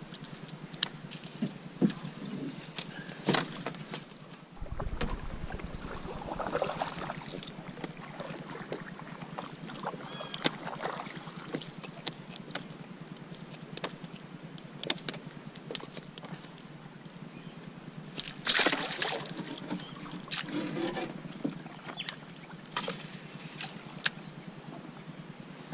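Scattered sharp clicks and knocks of fishing pliers, lure and tackle being handled in a canoe while a fish is unhooked, over water sloshing against the hull. About two-thirds through comes a louder, noisier stretch of splashing.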